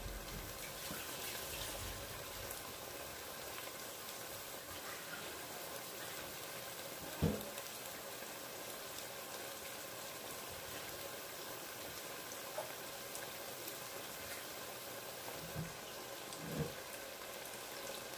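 Pork and vegetables simmering and sizzling in a pot on a gas burner: a steady, even bubbling hiss. A single knock about seven seconds in and a couple of softer bumps near the end.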